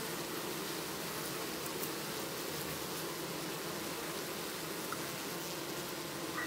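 Honey bees buzzing in a steady hum, a crowd of them gathered at a drop of honey, over a faint hiss. There are two faint short high peeps, one about five seconds in and one near the end.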